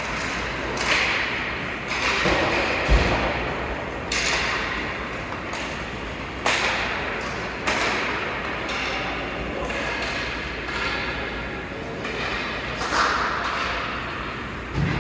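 Ice hockey play: sharp knocks of sticks on the puck and the puck hitting the boards, one every second or two, the loudest about three seconds in with a dull thud, over the steady scraping hiss of skates on ice.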